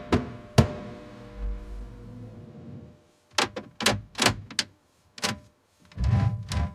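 Sharp knocks and thunks in short groups over a faint music bed, with a deep low swell about a second and a half in and a brief near-silent gap before the second group.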